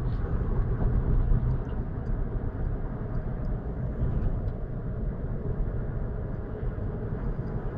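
Steady road and engine noise heard inside the cabin of a moving car, a low even rumble.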